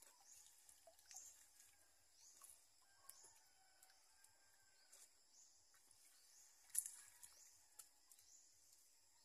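Faint rural outdoor ambience: short, high, rising chirps repeat every second or so, with a few soft clicks and one sharper click about seven seconds in.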